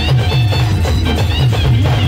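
Loud band music played through a DJ sound truck's speaker stack: a heavy, pulsing bass beat with a high melody line above it.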